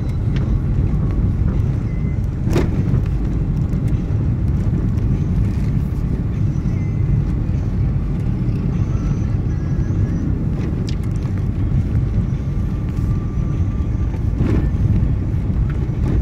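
Steady low rumble of a vehicle on the move, with engine, tyre and wind noise. Two short sharp knocks stand out, one about two and a half seconds in and one near the end.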